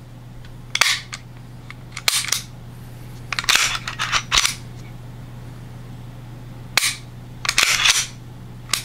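Heckler & Koch USP 45 Compact Tactical pistol's slide and action being worked by hand after reassembly, giving sharp metallic clicks and clacks in about six short groups over a steady low hum.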